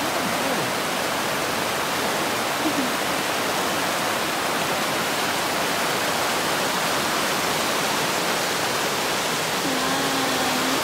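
River rapids rushing over rocks: a steady, full whoosh of whitewater.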